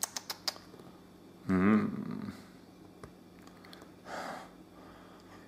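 A man's close-up mouth and breath sounds: a few small clicks at the start, a short low vocal sound about a second and a half in, and a breathy snort-like exhale about four seconds in. A faint steady hum runs underneath.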